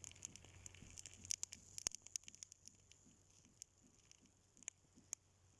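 Faint crackling of a burning pile of matches: irregular sharp pops and clicks, thick for the first two seconds, then thinning out.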